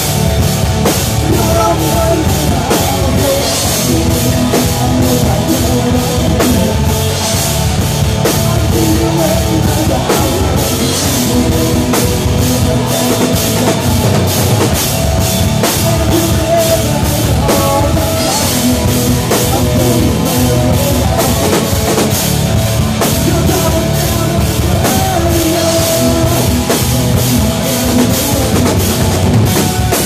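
Heavy rock band playing live: distorted electric guitars over a busy, driving drum kit.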